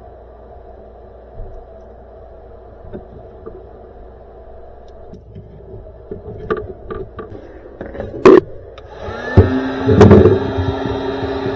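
Scattered clicks and handling knocks, a loud knock about eight seconds in, then a small motor starts, rising briefly in pitch, and runs on steadily with a hiss.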